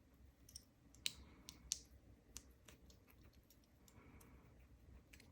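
Faint, irregular small metal clicks and ticks of a shim being worked into a Lockwood oval lock cylinder. Two sharper clicks come in the first two seconds, then lighter ones follow.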